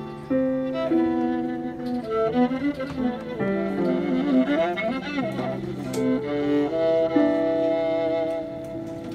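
A violin-family instrument played with the bow: a slow melody of held notes, with a stretch of quicker, wavering notes in the middle, over low notes held underneath.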